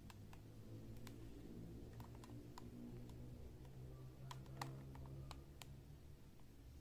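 Clear plastic blister pack of a carded diecast toy car clicking as hands turn and grip it: a scattered run of light clicks, the loudest about four and a half seconds in, over a faint low hum.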